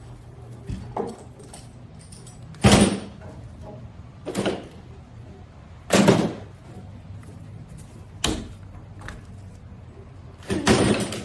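Scattered knocks and metallic clatter, about six of them with the loudest near the middle and a longer rattle at the end, from handling the scooter wheel while the cut, steel-banded solid tire is taken off the rim.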